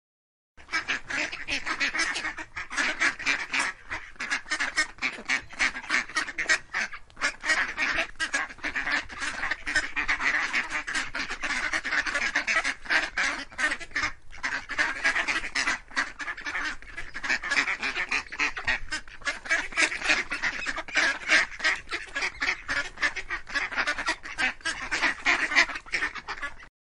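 A flock of waterfowl calling continuously, many rapid calls overlapping one another; the sound starts abruptly about half a second in and cuts off suddenly near the end.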